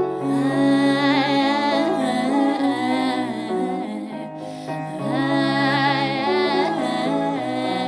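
Live acoustic song: a female singer vocalising a wordless melody in two long phrases over held keyboard chords.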